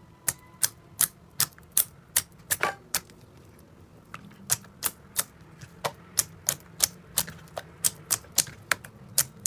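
A steady series of sharp clicks, about two to three a second.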